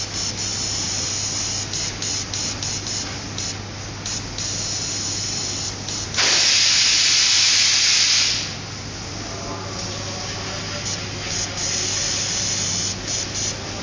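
Airbrush spraying paint, air hissing from the nozzle in short trigger bursts, with one longer, louder spray of about two seconds some six seconds in. A steady low hum runs underneath.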